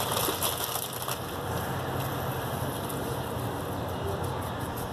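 Steady background rumble with a hiss over it, even throughout, with no distinct events.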